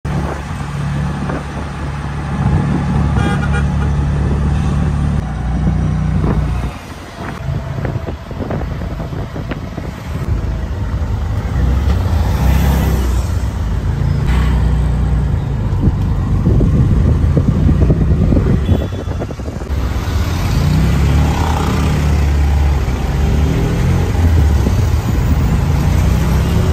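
Busy city street traffic: the engines of buses and other road vehicles run close by in a steady low rumble.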